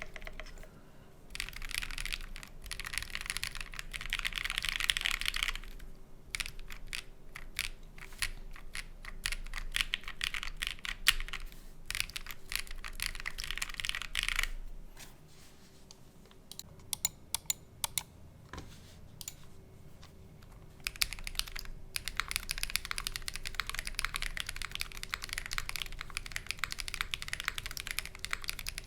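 Typing on an OwlLabs Mr. Suit custom mechanical keyboard with lubed Quartz switches and GMK Kaiju keycaps. Three runs of fast, continuous typing are broken by stretches of slower, single keypresses. A faint steady fan hum runs underneath.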